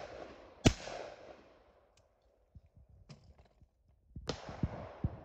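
A shotgun shot at a clay target well under a second in, its report echoing and fading away over about a second and a half. A few light clicks follow. About four seconds in comes another sharp bang with a trailing echo.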